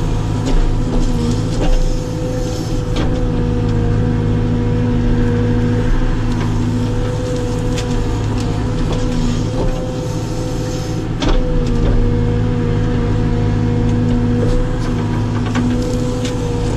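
Caterpillar 432F2 backhoe loader's diesel engine running steadily under load while the backhoe digs, heard from inside the cab, with a steady whine over the engine drone. A few sharp knocks cut through it.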